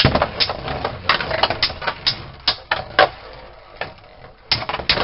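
Two Beyblade spinning tops, just launched, clashing with each other and rattling against a plastic stadium: irregular sharp clacks and clicks. They thin out a little past three seconds in and crowd together again near the end.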